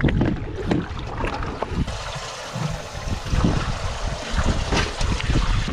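Wind buffeting the microphone and water lapping against a small boat's hull, with scattered clicks and knocks from handling fishing gear.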